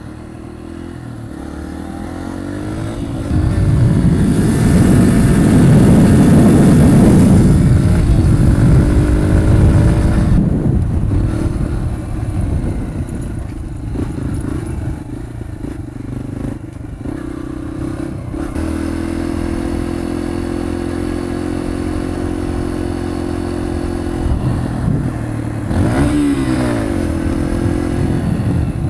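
Dirt bike engine running under way, revving up hard about four seconds in. It then settles into a steady cruise, with a short rise and fall in revs near the end.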